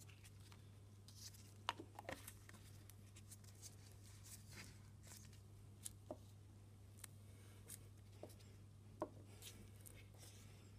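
Small glass reagent bottles being handled and set down on a bench: a few faint, sharp clicks and taps of glass and plastic caps, the loudest about two seconds in and another about nine seconds in, over a steady low hum.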